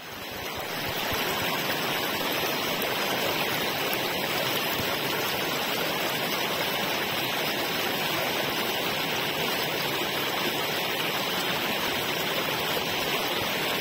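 Shallow rocky stream running over boulders: a steady rush of water that fades in over the first second.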